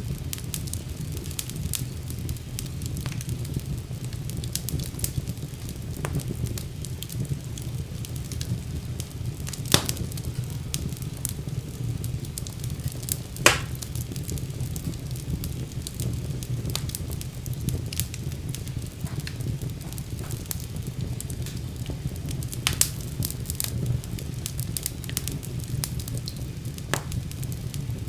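Wood fire burning in a fireplace: a steady low rumble of flames with scattered crackles throughout and two sharper pops, about ten and thirteen seconds in.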